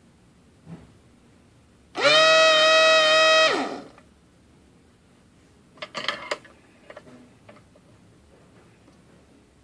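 Soldering rework station's built-in vacuum pump buzzing at its lowest pressure setting, starting suddenly and running for about a second and a half, its pitch sagging as it switches off. A few sharp handling clicks follow a couple of seconds later.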